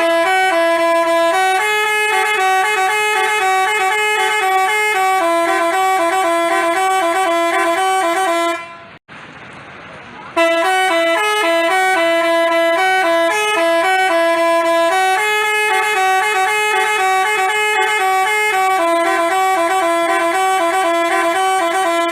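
Telolet basuri bus horn playing a tune of quick, stepping notes in two phrases, with a short break about nine seconds in.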